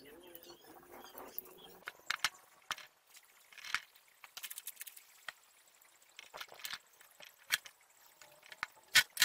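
Irregular small clicks and taps of hands handling wires, connectors and a small tool against the metal casing of an electric motor, with a sharper knock near the end.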